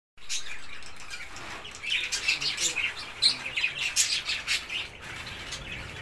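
Cockatiels chirping: a fast run of short, high calls, busiest from about two seconds in until about five seconds in.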